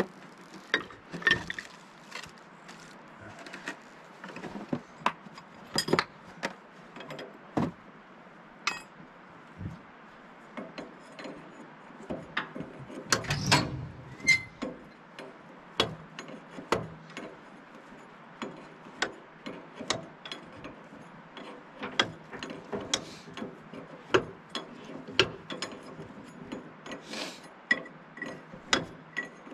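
Metal hand tools clicking and clinking against steel while a dozer's hydraulic lift cylinder is worked on at its mount: irregular sharp clicks a few times a second, with a louder, busier clatter about halfway through.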